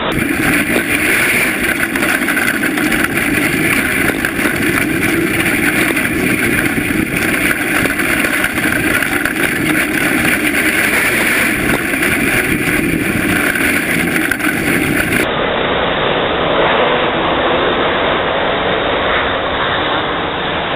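Winged dirt sprint karts' small engines running hard at racing speed, heard first close up from onboard one kart with wind rushing past, then from the grandstand after a sudden change about fifteen seconds in, where the engines sound duller and more distant.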